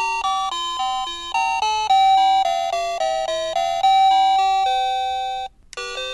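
Ang USA wireless doorbell's plug-in receiver playing one of its electronic chime ringtones, a quick melody of beeping notes. It cuts off about five and a half seconds in, and a different tune starts a moment later.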